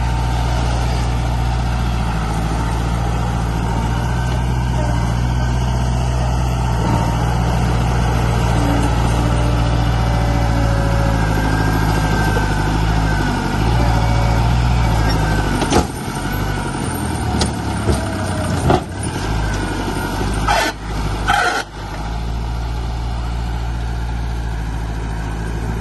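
Heavy diesel engine of a dump truck or bulldozer running steadily, its note shifting about halfway through. A few short, sharp noises come between about 16 and 22 seconds in, as the engine drone drops away for a moment, before it settles back to a steady run.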